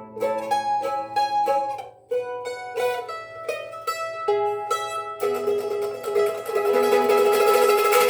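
Instrumental outro of a folk song on a plucked string instrument: single picked notes, then about five seconds in a fast, louder strummed chord that rings out at the close.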